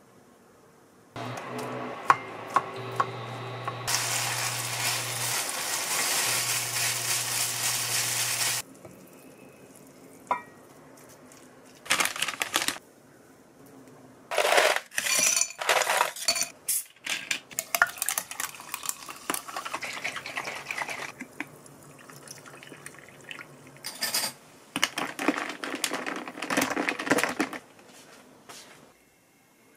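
Kitchen sounds: a steady hiss with a low hum lasting about seven seconds near the start, then utensils scraping and clinking against a ceramic bowl in many short strokes as rice is mixed with crumbled seaweed.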